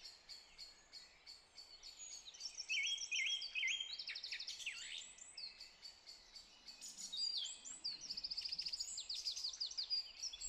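Songbirds singing, several at once, with fast trills, repeated chirps and quick falling notes overlapping.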